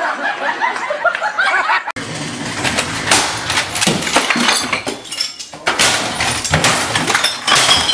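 A man's voice yelling, then about two seconds in a dense, irregular run of crashing and clattering, with objects knocking over and glass clinking and breaking.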